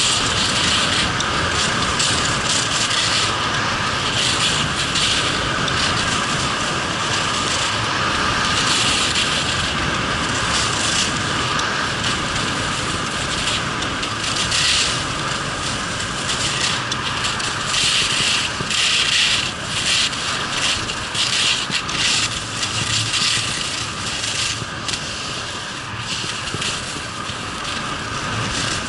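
Skis scraping and hissing over firm, tracked-up piste snow. The scrape swells with each turn as the edges bite, about once a second or so.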